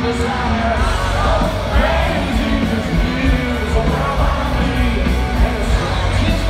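Rock band playing live at full volume, with heavy drums and distorted guitars and singing over them, heard from within the arena crowd.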